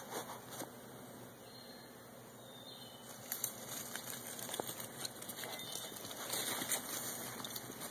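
Footsteps and rustling through dry leaf litter on the woodland floor, with scattered sharp snaps of twigs. The rustling becomes busier about three seconds in.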